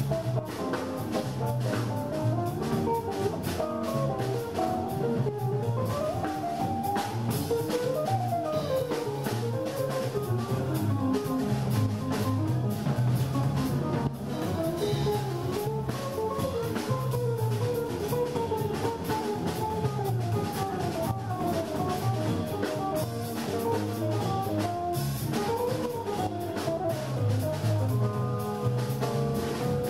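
Live jazz trio of guitar, bass and drum kit: the guitar plays runs of single notes that rise and fall over a walking bass line and steady drum and cymbal strokes.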